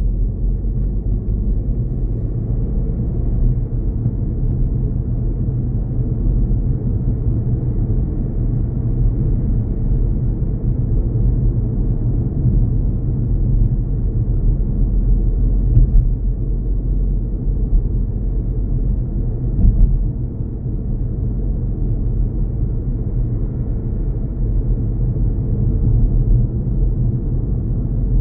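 A car driving, heard from inside the cabin: a steady low rumble of the engine and the tyres on the road.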